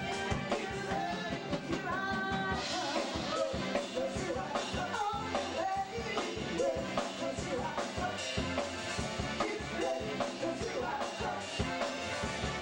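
Live band playing: a lead singer and two backing singers over a drum kit and keyboard, with a steady beat.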